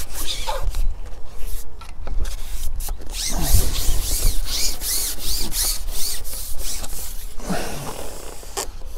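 Rustling and rubbing handling noise close to the microphone, over a steady low rumble of wind on the microphone.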